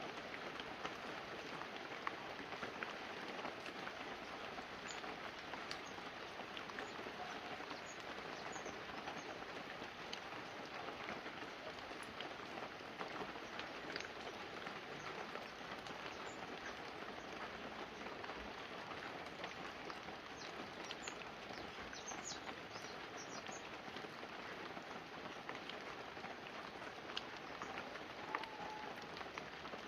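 Light, steady rain falling on banana leaves and a roof: an even hiss with scattered drips and drops.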